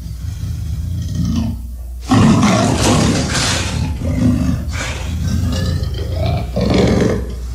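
Tyrannosaurus-rex creature roar sound effects over a steady low rumble: a loud roar breaks in about two seconds in, followed by shorter roars, the last one near the end.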